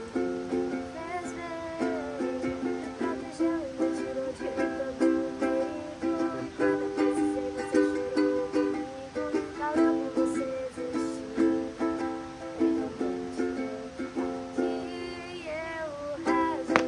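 Ukulele strummed in steady rhythmic chords, playing a song, with a voice singing a few notes along with it now and then.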